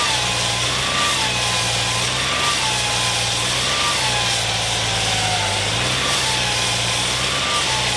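Construction machinery running steadily with a low engine hum that shifts pitch slightly about halfway through, over a thin squeal that dips in pitch and repeats roughly once a second.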